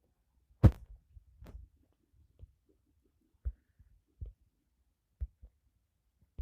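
Dull thumps from a phone being handled and tapped while editing: one sharp knock about half a second in, then several softer low thumps spaced about a second apart.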